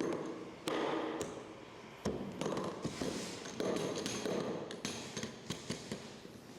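Clicks and knocks of hard plastic storage boxes being handled: latches and lid snapping and tapping. Several separate knocks, then a run of small quick clicks near the end.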